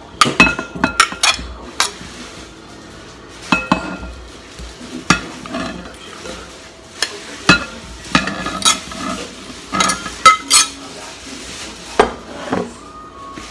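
A spoon scraping and clinking against a plate and a glass bowl as pieces of cut fruit are pushed off the plate into the bowl: irregular sharp clinks, some with a short ring, with soft scraping between them.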